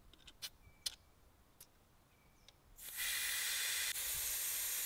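Air hissing steadily out of a Pajero's tyre valve through a dial tyre gauge pressed on it, letting the tyre down from 35 toward 30 PSI for off-road driving. The hiss starts about three seconds in, after a quiet stretch with a few small clicks.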